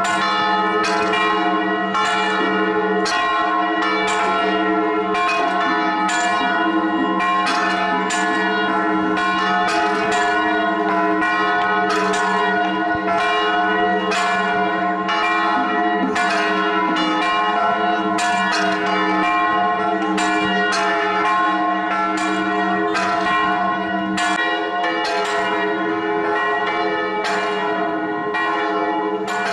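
Church bells pealing: several bells struck in a steady run, a fresh stroke about every half second, their tones ringing on and overlapping into a dense wash.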